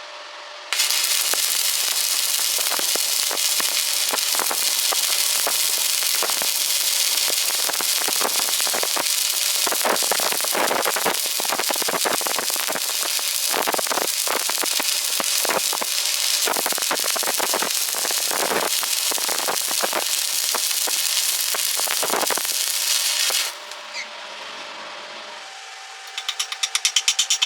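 Stick welding arc crackling steadily: struck suddenly about a second in and held for over twenty seconds, then broken off abruptly. Near the end a fast, regular run of sharp ticks begins.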